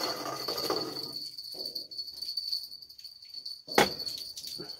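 Insect chirring steadily at a high pitch, with a single sharp knock about four seconds in.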